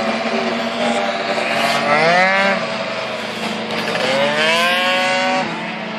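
Racing scooter engines revving up twice, each a rising whine about two and four seconds in, over a steady low hum.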